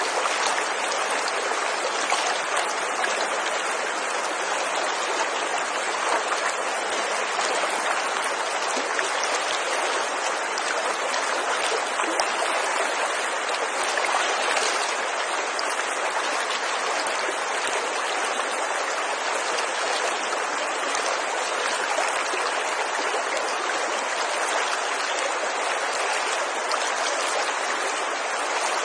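Mountain river water rushing with a steady, even flow noise.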